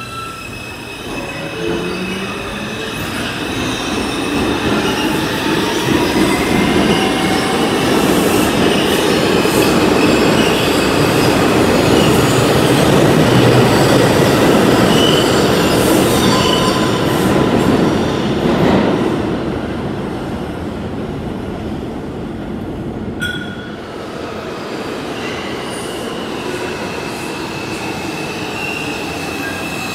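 New York City subway train running through the station: a loud rumble that builds to its loudest about halfway through and then eases off, with high steady wheel squeals over it.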